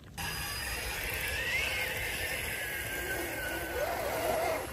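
Electric winch on a 1/10 scale RC crawler whining steadily as it reels in its line and pulls the truck up a rock ledge. The whine wavers slightly in pitch.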